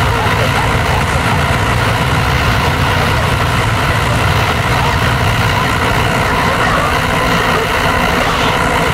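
Harsh power-electronics noise: a dense, unbroken wall of distorted static over a heavy low rumble, steady and loud with no beat.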